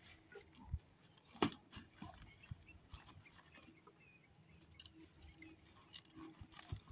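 Faint scattered clicks and knocks, one sharper knock about a second and a half in, with a few faint short chirping animal calls.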